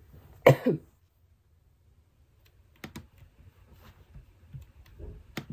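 A short voice sound with falling pitch about half a second in, then scattered faint clicks of laptop keys being pressed.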